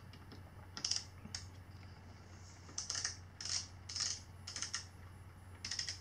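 Small ratcheting torque wrench clicking in short bursts, about seven in all, as it works the steering-stem and top-clamp bolts of an electric dirt bike's headset.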